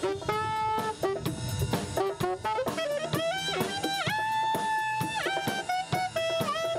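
Municipal pop-brass band (saxophones, trombones and drum kit) playing an upbeat song, the saxophones carrying the melody over steady drum beats, with notes sliding into pitch and one long held note about four seconds in.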